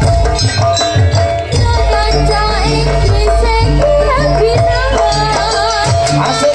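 Jaranan accompaniment music playing loudly: drum strokes, a deep bass pulse and a held ringing tone, under a wavering melodic line.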